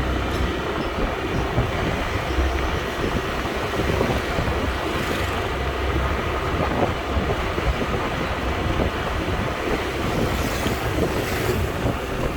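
Wind buffeting the microphone over a steadily running vehicle engine, with a heavy low rumble.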